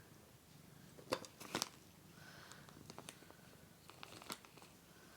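A cat crunching a dry treat: a few faint, sharp crunches, two close together about a second in and more near three and four seconds.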